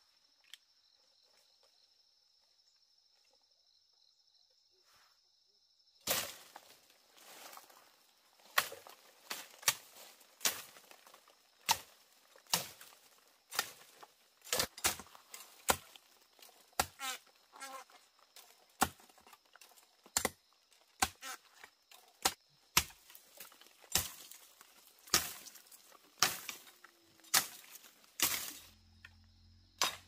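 A faint steady high-pitched hum for about six seconds, then a run of sharp knocks, about one to two a second and uneven in strength, continuing to the end.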